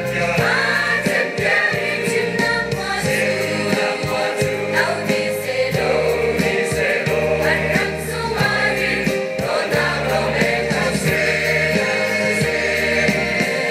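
A church choir singing a gospel hymn in harmony, with sustained chords over a steady bass line from keyboard accompaniment.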